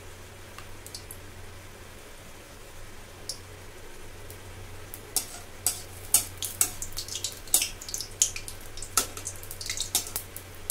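Battered eggplant fritters (beguni) frying in shallow oil in a kadai: a faint sizzle over a low steady hum, turning about five seconds in to loud crackling, spitting pops as the fritters are turned over with a slotted spatula.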